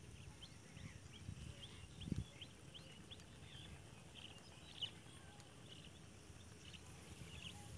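Faint, scattered short high chirps of small birds, with low rumbles on the microphone, one stronger about two seconds in.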